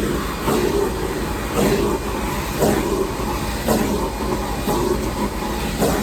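Shop vacuum running steadily, its suction sound surging in regular strokes about once a second as the nozzle is worked back and forth.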